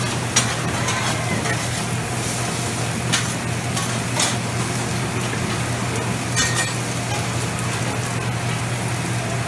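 Noodles and meat sizzling on a large flat-top griddle at a Mongolian barbecue station, a steady hiss, while metal spatulas scrape the steel and clink against it a few times.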